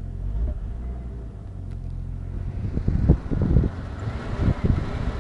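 1996 Jeep Grand Cherokee's 4.0-litre inline-six running, then from about halfway through stumbling in uneven low surges under throttle. It is the random misfire and hesitation, with the engine almost dying.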